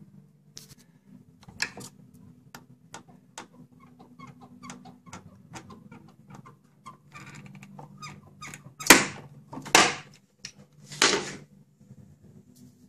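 Glue pulling with a mini-lifter dent puller on a car body panel: small clicks and creaks of the tool and glue tab, then three loud cracking releases about a second apart as the glue lets go of the panel. A low steady hum runs underneath.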